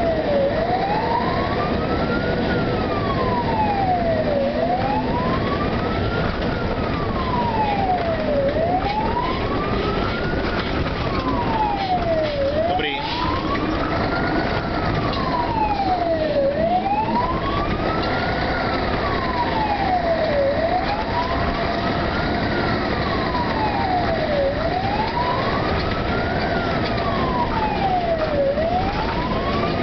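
Fire engine's wailing siren, its pitch rising and falling slowly in a smooth cycle about every four seconds, heard from inside the moving truck over steady engine and road noise.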